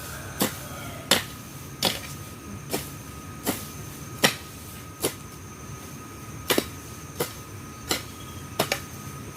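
A hand tool chopping into weeds and ground again and again, about one sharp blow every three-quarters of a second, with a short pause in the middle.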